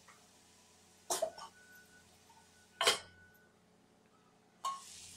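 Two short, sharp noises about two seconds apart, then, after a gap of silence, the faint steady sizzle of vegetables frying in a kadai near the end.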